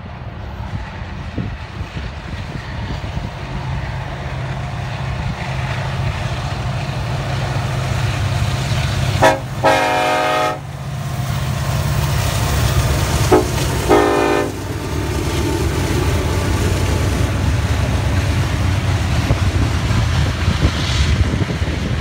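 Union Pacific diesel freight locomotives approach with a rumble that grows louder and sound two blasts on their air horn, a longer one about nine seconds in and a shorter one about four seconds later. The locomotives then pass and the covered hopper cars roll by with a steady rumble of wheels on rail.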